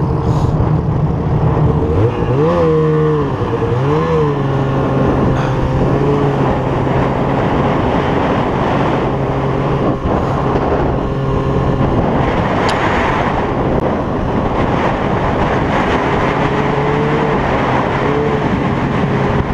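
Two-stroke snowmobile engine revving up twice a few seconds in, then running at a steady speed as the sled rides across snow, over a constant rushing noise.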